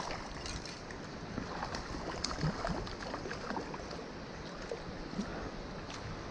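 Hooked trout splashing at the water's surface, a series of short splashes, over a steady rush of water.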